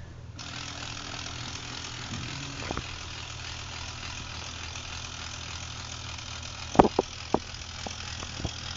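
The small electric drive motor and gear train of a homemade robot wagon, recycled from inkjet printer parts, starting up about half a second in and running steadily with a whirring, ratcheting gear noise. A few sharp clicks come about seven seconds in.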